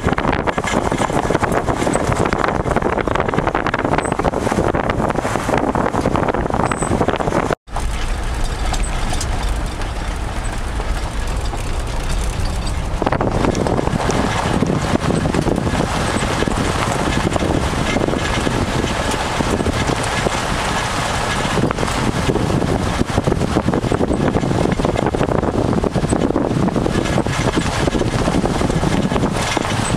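Steady rushing wind and road noise from a moving vehicle, with heavy wind buffeting on the microphone. It cuts out sharply for an instant about eight seconds in, and the tone of the noise shifts a few seconds later.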